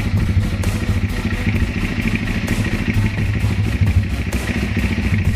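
Honda Tiger motorcycle's single-cylinder four-stroke engine running steadily at low speed, its exhaust note loud and evenly pulsing for a sound check.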